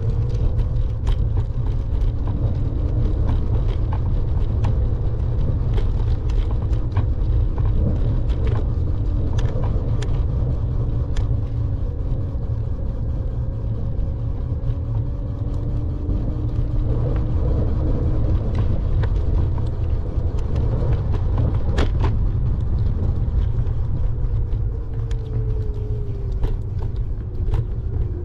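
A steady low rumble, with a faint wavering hum and scattered light clicks over it.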